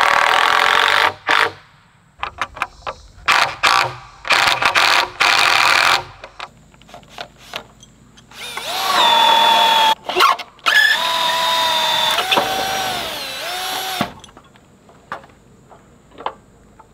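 Cordless drill working into a pressure-treated 2x6 beam and 4x4 post in several bursts, its motor whine rising and dipping as the bit loads up in the wood.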